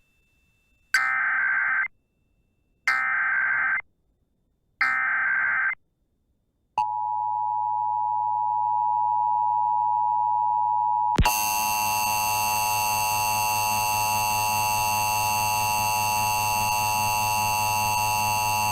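Emergency Alert System tones. Three short bursts of the screechy digital SAME header data are followed by the steady electronic attention signal. About 11 s in, that signal changes abruptly to a harsher, buzzier steady tone.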